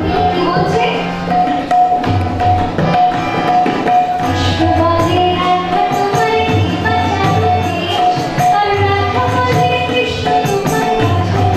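A woman singing into a microphone to her own harmonium accompaniment, the harmonium holding sustained chords under the melody, with a drum keeping time.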